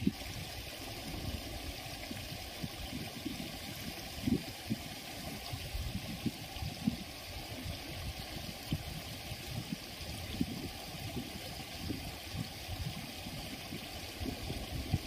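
Water flowing through a small sluice outlet, a steady rushing hiss with irregular soft low thumps throughout.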